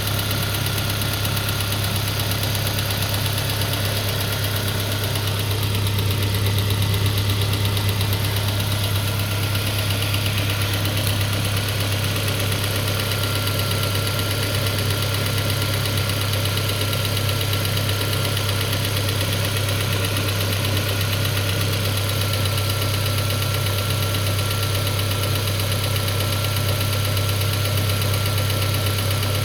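Peugeot 407's 2.2-litre petrol four-cylinder idling cold with a knock. The knock appeared after new piston rings, lapped valves and new valve stem seals, and the owner takes it for the cam phaser.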